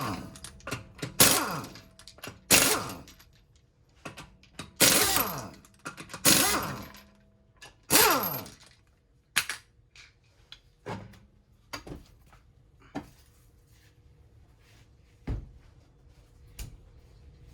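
An impact wrench run in five short bursts, each spinning down in falling pitch, as bolts are loosened during a brake job. Scattered clicks and knocks of parts and tools being handled follow, with one heavier knock near the end.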